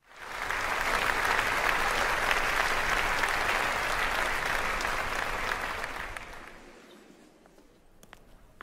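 Audience applauding: the clapping swells in at the start, holds steady, and dies away about six to seven seconds in, leaving a few faint clicks near the end.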